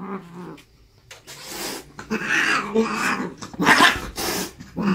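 Long-haired cat growling and hissing in several bursts while held down in leather handling gloves, a frightened, aggressive cat fighting being restrained.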